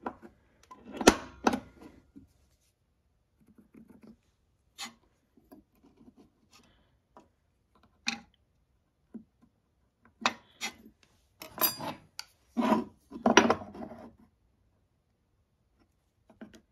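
Small hand-tool handling sounds on a metal saw table: a scriber and pencil scratching marks on a wood block, and a steel ruler and clear plastic box being picked up and set down. The sounds are scattered clicks and scrapes, loudest about a second in and again about three-quarters of the way through.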